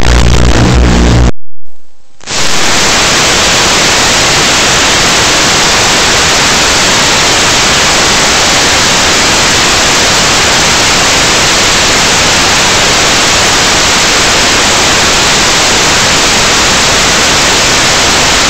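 Loud music with a heavy bass cuts off about a second and a half in. After a brief dip it gives way to a steady, loud white-noise static hiss, the sound of a blank, no-signal video feed.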